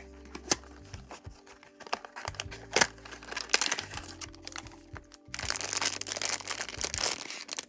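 Cardboard box flaps being opened with a few sharp clicks, then a silver foil blind-box bag crinkling steadily as it is handled, from about five seconds in. Soft background music plays underneath.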